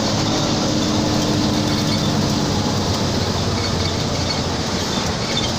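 Intercity bus driving along the road: a steady engine drone and road noise, with a held low engine tone that fades out about two and a half seconds in.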